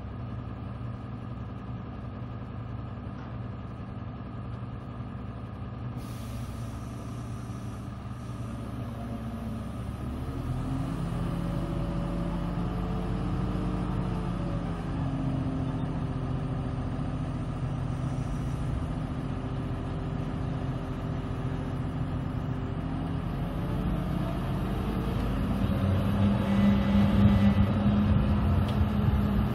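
Truck-mounted crane's engine running to drive the crane's hydraulics as it hoists a wall panel. It steps up in level and pitch about a third of the way in and gets louder again near the end.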